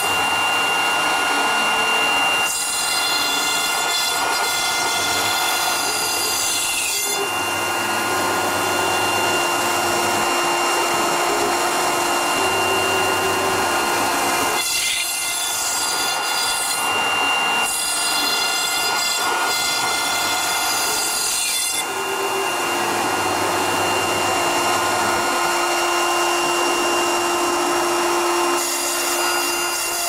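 CNC router spindle driving an overlong R4 ball-nose (radius) cutter through Styrodur extruded polystyrene foam at a 2500 mm/min feed. A steady high spindle whine sits over a cutting hiss. The sound changes every few seconds as the cutter moves from pass to pass, and a lower steady tone comes and goes with some of the passes.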